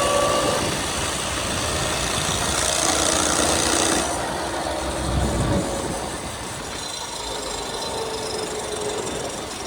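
A 16-horsepower go-kart engine running hard under throttle. About four seconds in the sound drops away abruptly, a low knock follows a second later, and the engine carries on at a lower, quieter run.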